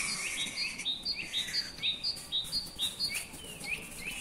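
A bird chirping steadily in a quick, regular series of short, rising chirps, about three or four a second.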